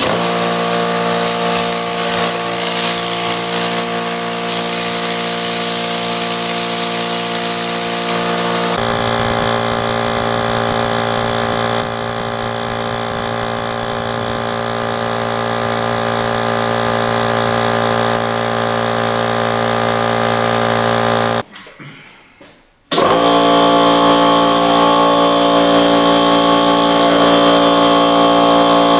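Craftsman 26-gallon air compressor with a 1.5 hp direct-drive motor and a freshly rebuilt oil-free pump (new piston, cylinder and valve plate) starting up and running steadily, pumping up the tank. A strong hiss rides over it for the first nine seconds or so. The running sound grows slowly louder, then cuts off briefly about three-quarters of the way through and starts again.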